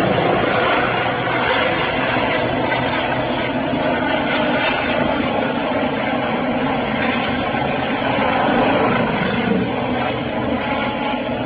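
Eurocopter EC135 air-ambulance helicopter flying past: steady rotor and turbine engine noise, growing a little fainter near the end as it moves away.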